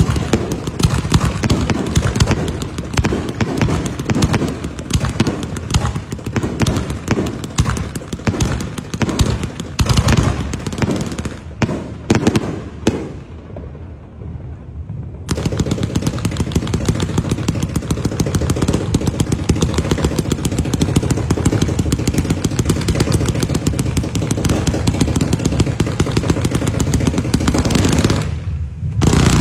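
Fireworks going off in rapid, continuous succession: a dense string of bangs and crackles from rockets and bursting aerial shells. It thins to a short lull about thirteen seconds in, then starts again just as densely about two seconds later.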